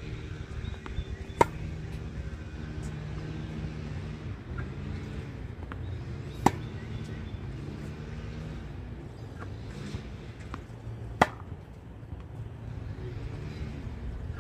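Tennis ball struck sharply with a racket three times, about five seconds apart, over a steady low hum, with a few faint ball bounces between the hits.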